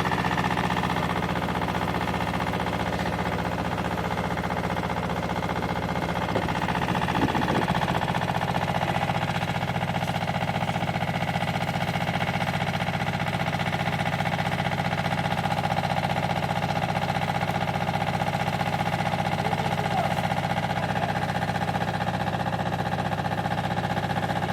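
An engine running steadily, with a low hum and a steady whine above it, briefly unsettled about seven seconds in.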